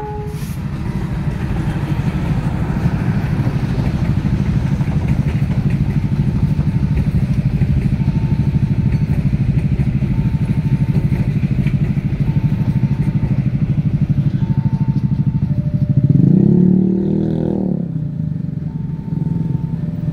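A diesel locomotive-hauled commuter train runs past with a steady rumble and rapid wheel clatter on the rails. A level-crossing warning repeats short beeping tones about every two seconds. Near the end an engine briefly revs up and down, the loudest moment.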